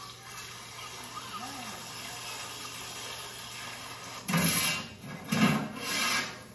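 Large aluminium cooking pots and lid being handled: a steady rubbing, scraping noise, then three louder scrapes about four to six seconds in.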